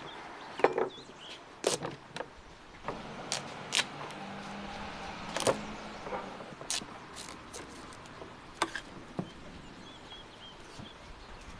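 A knife cutting through a large pumpkin: a string of sharp cracks and crunches as the blade splits the hard rind. Between about four and six seconds in, a drawn-out creaking squeak comes from the blade forcing through the dense flesh.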